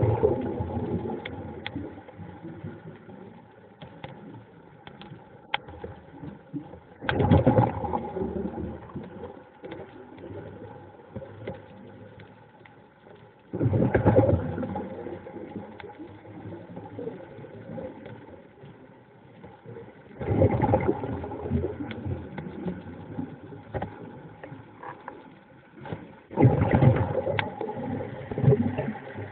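Underwater, a diver's exhaled breath bubbling out in five bursts about every six and a half seconds, each starting suddenly and fading over a couple of seconds. Under it runs a steady engine hum.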